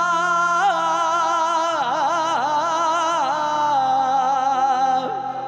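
A male singer holds a long sung note in a Punjabi song, over steady low instrumental notes. The note wavers, and about two seconds in it breaks into a run of quick melodic turns before settling again. The voice fades near the end.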